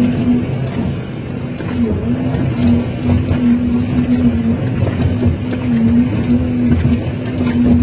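Excavator's engine and hydraulics running steadily under load while its hydraulic claw tears at a scrapped car body. The hum dips in pitch now and then as the load comes on, and short metal clanks and scrapes come through.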